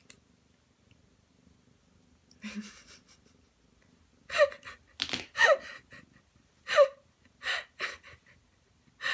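Ragdoll cat squirming during a claw trim, giving a series of short, falling cries of protest from about four seconds in, mixed with clicks and a breathy sound just before.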